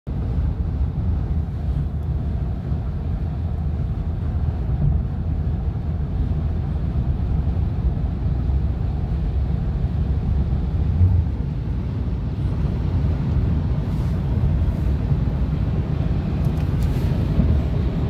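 Steady low road rumble and tyre noise of a car driving at highway speed, heard from inside its cabin, coming alongside a grain semi-trailer near the end.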